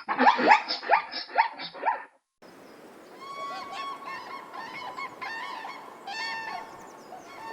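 A dog barking rapidly, about four barks a second, cut off about two seconds in. After a brief gap, several geese start honking, their calls overlapping.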